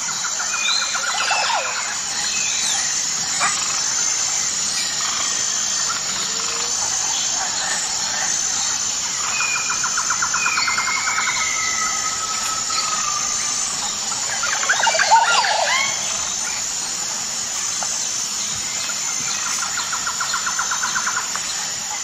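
Several birds calling and whistling over a steady, high, pulsing insect buzz. A rapid rattling trill comes three times, and a louder flurry of calls sounds about two-thirds of the way through.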